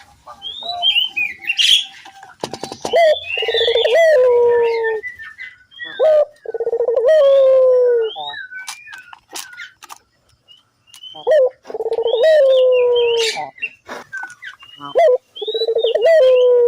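Puter dove (Indonesian turtle dove) cooing in full voice: four rolling, trilled coos about two to four seconds apart. Short high chirps of small birds sound over and between them.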